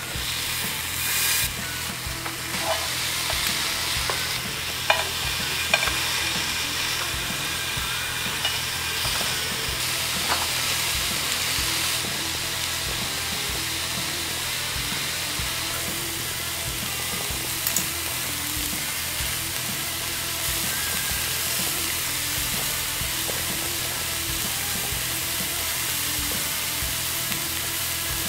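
Slices of raw Korean beef ribeye sizzling steadily on a hot tabletop grill pan, with a few sharp metallic clicks of tongs in the first several seconds.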